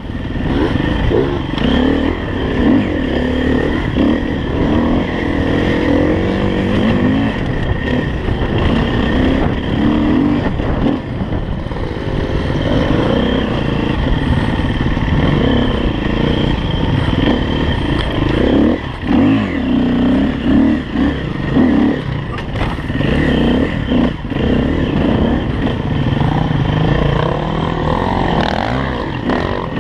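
Husaberg FE350 dirt bike's single-cylinder four-stroke engine running under load while ridden off-road, its revs rising and falling with the throttle over rough ground.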